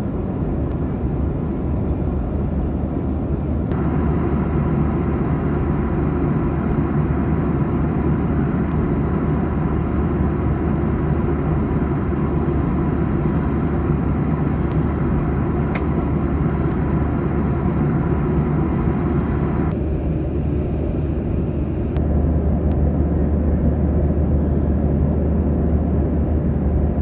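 Cabin noise of a Boeing 737-800 in cruise: the steady rush of airflow and engine drone heard from a window seat, shifting abruptly in tone a few times.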